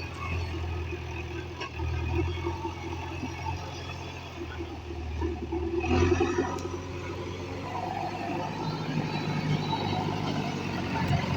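Diesel engine of heavy machinery running steadily, its pitch rising and falling as the load changes, with a brief louder noise about six seconds in.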